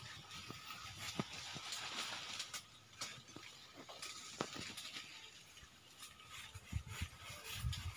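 Footsteps on a dirt path with light, irregular knocks and rustles, and a few low thumps near the end.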